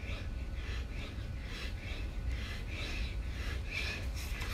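A man panting hard from exertion during push-ups: quick, even breaths, about two or three a second, over a steady low rumble.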